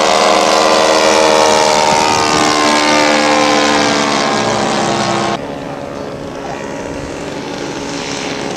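Engine of a radio-controlled scale model Beechcraft on a low, dirty flyby (gear and flaps down), its pitch falling as it passes. About five seconds in the sound cuts off abruptly to a quieter, steadier engine drone.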